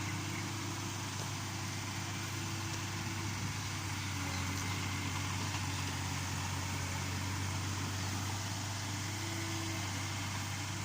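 Yanmar B37 excavator's diesel engine running steadily at an even speed, a low hum.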